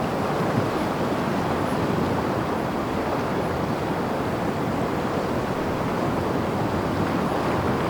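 Ocean surf breaking against the shore: a steady, unbroken wash of waves, with some wind.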